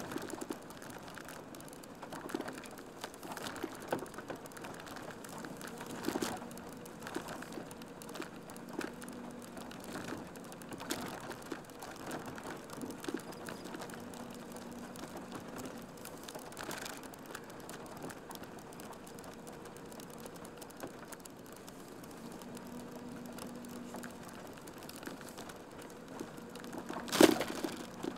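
Inside a slow-moving van: the engine's low steady hum, with scattered small clicks and rattles and one sharp knock about a second before the end.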